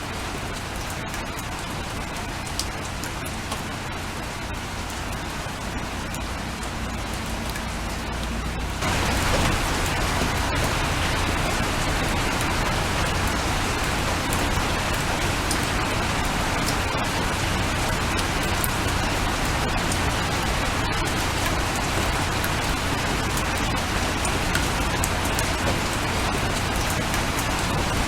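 Steady rain with scattered single drops ticking. It turns to a heavier, louder downpour about nine seconds in, then holds steady.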